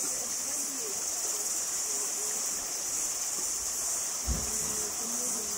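Outdoor ambience dominated by a steady high-pitched insect chorus, with faint distant voices underneath and a brief low thump about four seconds in.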